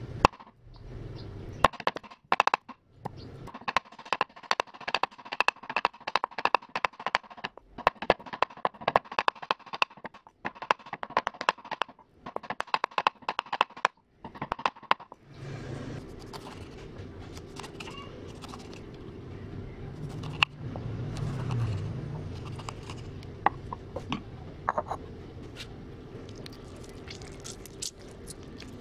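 Cleaver chopping rapidly on a thick wooden chopping block, several even strikes a second, each with a short ring, as food is minced. After about fifteen seconds the chopping stops and a steady low hum goes on, with a few scattered light clicks.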